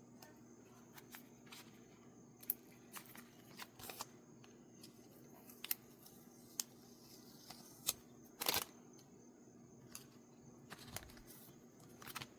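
Hands handling and opening mail packaging: scattered clicks, crinkles and short rustles of paper and plastic, over a faint steady hum.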